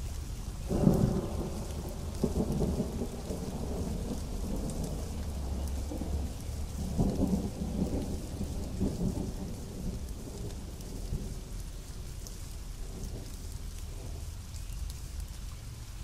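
Steady pouring rain with rolling thunder: a loud peal about a second in, further rumbles rolling in around the third and seventh seconds, then dying away while the rain keeps falling.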